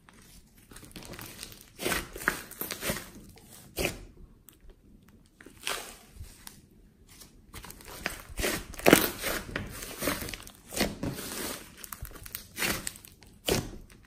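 Hands kneading, folding and squeezing a large lump of thick slime, giving irregular bursts of squishing and crackling with short pauses between; the loudest squeeze comes about nine seconds in.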